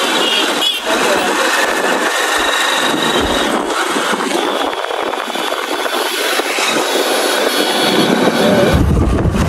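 Motorcycle engine running amid street traffic noise on a busy road, with voices in the mix.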